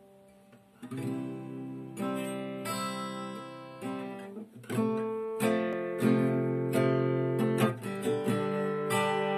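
Acoustic guitar strummed, starting about a second in, with a series of ringing chords changing every second or so.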